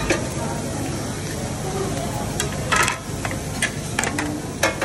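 Food sizzling steadily on a teppanyaki steel griddle, with several sharp clacks of a metal spatula striking the plate, a cluster of them a little past halfway and more near the end.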